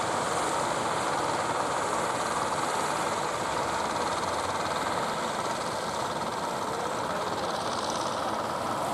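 Inboard engine of a wooden fishing boat chugging steadily as the boat motors in, under an even rush of wind and surf noise.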